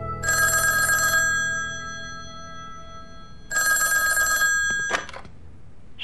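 Vintage telephone bell ringing twice, each ring about a second long, a couple of seconds apart, followed by a short clack near the end.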